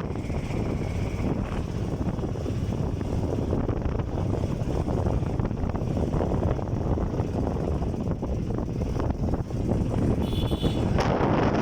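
Steady low rumbling wind noise buffeting the microphone, getting brighter near the end, with a brief faint high tone just before that.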